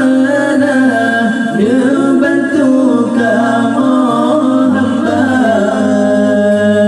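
A man singing a nasyid solo without instruments, drawing out long held notes that bend and glide in pitch.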